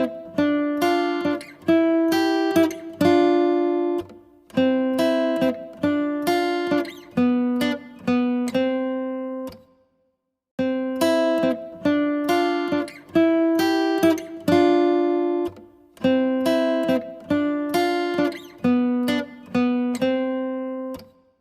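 Music: a plucked acoustic-guitar melody in short phrases of ringing notes. It stops completely for about a second about halfway through, then starts again.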